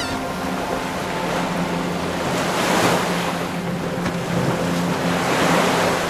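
Ocean surf washing in: a steady rushing hiss of breaking waves that swells about halfway through and again near the end.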